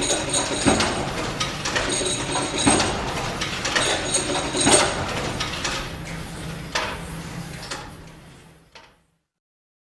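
The Corpus Clock's large mechanical movement clicking and clanking, with short metallic rings, fading out to nothing near the end.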